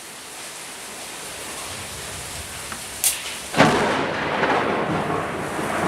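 Steady hiss of heavy rain, then a sharp snap about three seconds in, followed half a second later by a sudden loud thunderclap that rumbles on.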